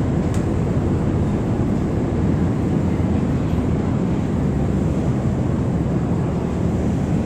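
River ferry's engine running steadily with a low, even drone.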